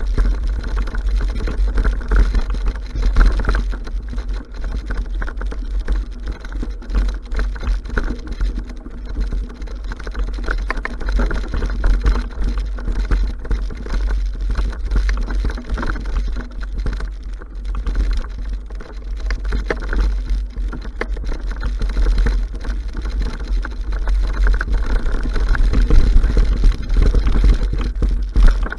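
Mountain bike ridden fast over a bumpy forest trail and through long grass: a constant rumble and rattle from the tyres and frame, with heavy low buffeting on the microphone.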